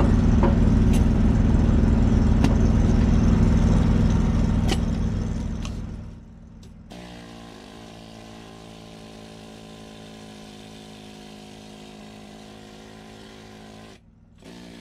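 An engine running steadily, loud for the first five seconds or so, then fading and carrying on much quieter and steady, with a few sharp clicks early on.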